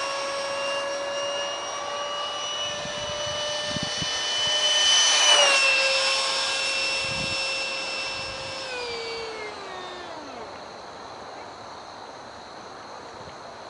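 Detrum 70mm electric ducted fan on an RC flying-wing jet whining as it passes overhead: the whine builds and slightly rises in pitch, is loudest about five seconds in and dips in pitch as it goes by, then winds down in pitch and fades as it flies away.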